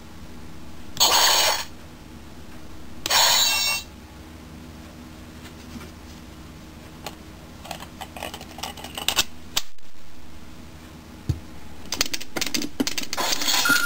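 Plastic clicks and clatter as a Secret Disc is fitted onto a Shinkenger electronic toy sword, then the disc spinning on its holder with rapid rattling clicks near the end. Two short noisy bursts come from the toy about one and three seconds in.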